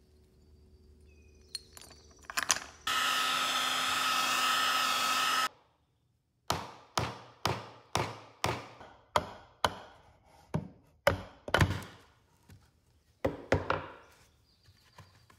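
A power tool runs steadily with a constant whine for about two and a half seconds, then stops abruptly. After that comes a run of about fifteen sharp strokes on wood, roughly two a second, each fading quickly, with a few more near the end.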